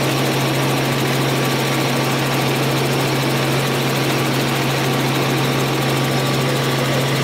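Helicopter in flight, heard from inside the cabin: a steady, loud engine and rotor drone with a strong low hum.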